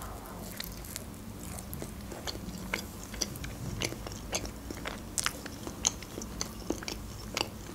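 Close-miked biting into and chewing a piece of toasted bread topped with shredded ham: irregular small crunches and wet mouth clicks.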